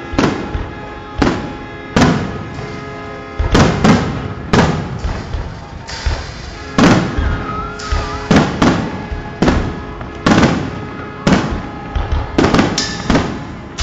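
Aerial fireworks shells bursting overhead: more than a dozen sharp bangs, about one a second and sometimes two or three in quick succession.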